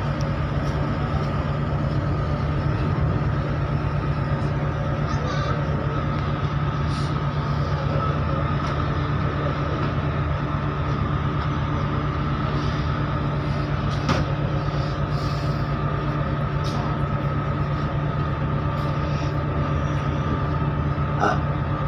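Steady low drone of a ship's engines and machinery heard from the open deck, with a steady higher whine above it.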